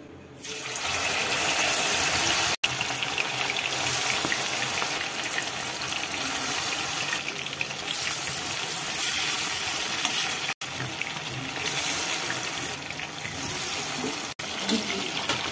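Hot oil sizzling in a wok as marinated meat pieces deep-fry, starting up about half a second in as the pieces go into the oil and then bubbling steadily.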